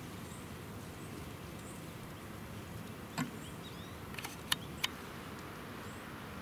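Quiet woodland ambience: a steady low rumble and hiss, with faint high bird chirps and a few sharp clicks or twig snaps about halfway through.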